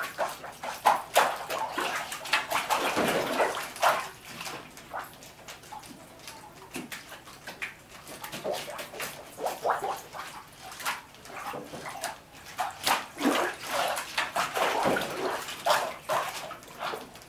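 Water and paper pulp sloshing and splashing in a wooden washi papermaking mould as it is worked over the vat, in repeated surges with short knocks and clicks of the wooden frame.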